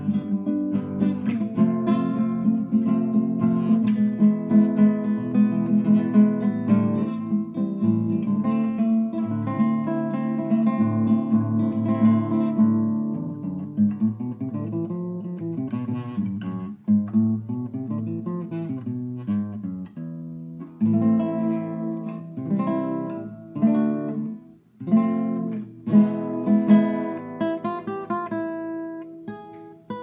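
Classical guitar played solo: plucked, ringing notes and chords. Partway through, a few notes bend up and back down in pitch, and near the end separate chords are struck with short pauses between them.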